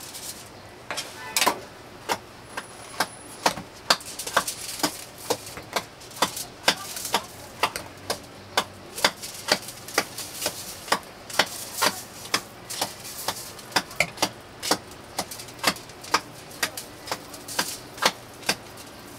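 A kitchen utensil knocking repeatedly on a hard surface: sharp single knocks, irregularly spaced at about two a second.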